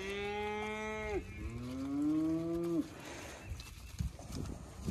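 Cattle mooing: two long, drawn-out moos, the first fading out about a second in and the second running on to nearly three seconds, followed by a quieter stretch with a couple of soft knocks.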